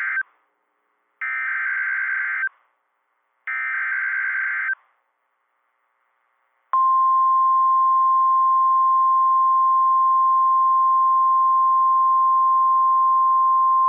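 Emergency Alert System signal on NOAA Weather Radio. It starts with the end of the first SAME header data burst, then two more raspy digital data bursts, each about a second long. After about two seconds of silence, the single steady attention tone near 1 kHz begins and holds. This is the alert header and alarm tone that announce a new severe thunderstorm warning.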